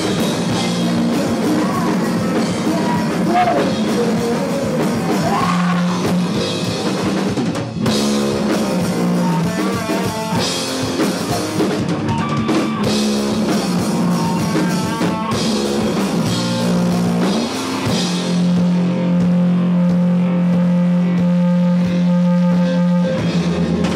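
Live rock band playing: electric guitar and a drum kit with cymbals, with some singing. Over the last several seconds a single note is held, then cuts off abruptly.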